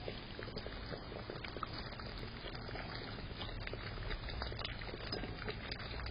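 Raccoons eating and drinking from shallow bowls: a steady run of small wet clicks and slurps.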